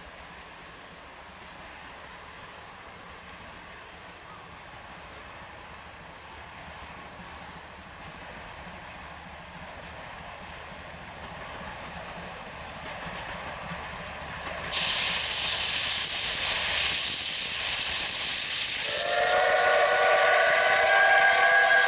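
Steam locomotive C12 66, a JNR Class C12 tank engine, drawing closer: faint rain noise that slowly grows louder, then a sudden loud hiss of steam about fifteen seconds in as steam vents low around the cylinders and wheels. About nineteen seconds in its steam whistle starts a long blast of several notes at once over the hiss.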